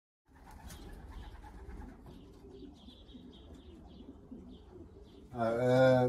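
Racing pigeons cooing softly, beginning a moment in.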